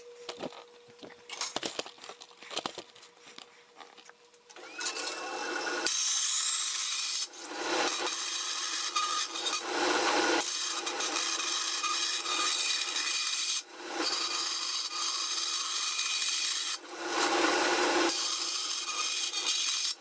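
Vertical band saw cutting a thin sheet-metal disc: a steady rasping cut that starts about five seconds in, broken by a few short pauses. A few faint clicks of handling come before it.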